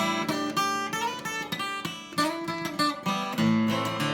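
Acoustic guitar strummed and picked in a short instrumental passage between sung verses of a folk ballad.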